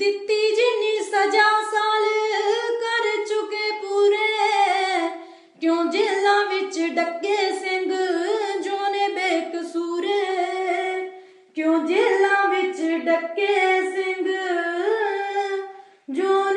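A single high voice singing unaccompanied, in long held phrases that break off about every five to six seconds.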